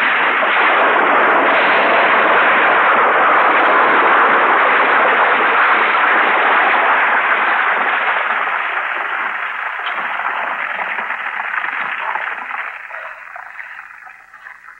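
Film sound effect of an explosion in a cave: a loud, dense rumbling noise that holds steady, then dies away over the last several seconds.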